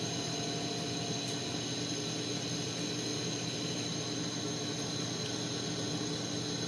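Propane-oxygen lampworking torch burning with a steady, even hiss while a glass disc is heated in its flame.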